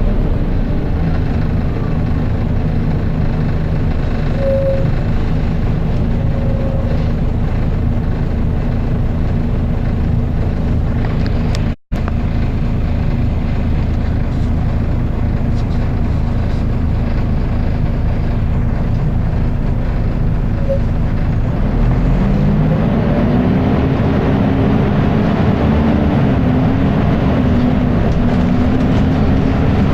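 Volvo B10BLE bus's rear-mounted six-cylinder diesel and its very loud cooling fan droning steadily, heard from on board. About two-thirds of the way through, the engine pitch starts rising and falling as the bus pulls away and works through its gears; the sound cuts out for a split second shortly before the halfway point.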